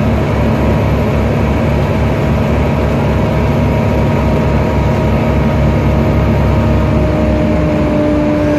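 Volvo B7TL double-decker bus under way, heard from inside the upper deck: steady diesel engine rumble under the high steady whine of a loud cooling fan, which falls slightly in pitch near the end.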